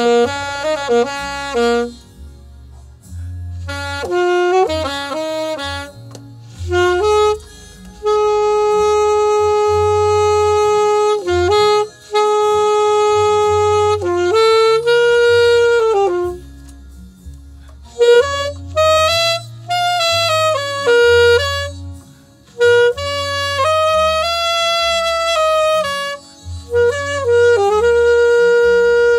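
Alto saxophone playing a jazzy melody, with quick runs of notes alternating with long held notes, over low bass notes underneath.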